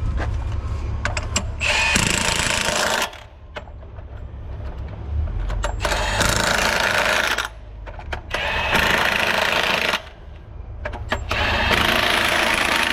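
Cordless impact wrench hammering on the wheel bolts of a CAT 972 wheel loader in four bursts of a second or more each, turning the bolts a further 60 degrees to finish the torque-turn.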